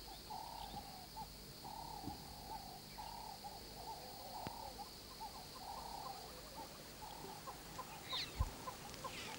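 Faint wildlife ambience: short hoot-like animal calls repeating irregularly, about two a second, over a thin steady high whine. A few high chirping bird calls come in near the end.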